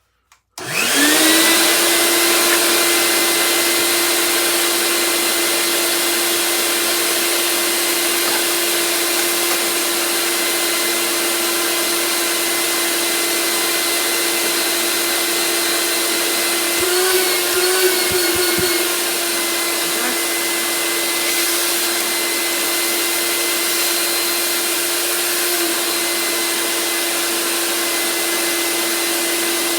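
A 48-year-old shop vac switched on, its motor spinning up within a second to a loud, steady whine. About halfway through, the pitch wavers briefly before settling again.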